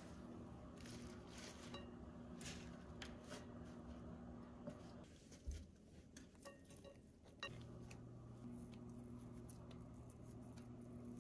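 Faint, scattered taps and light clinks of salad ingredients and utensils against ceramic bowls, over a low steady hum.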